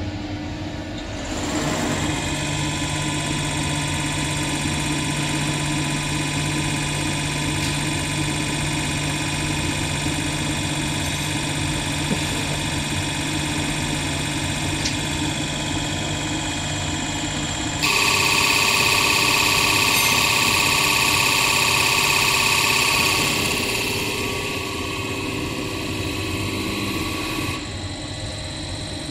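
CR919 common rail injector test bench running a six-injector test: a steady machine hum and whine from the bench's drive motor and high-pressure pump, with several steady tones. It steps up about a second and a half in, gets louder and higher about two-thirds of the way through, then eases back down near the end.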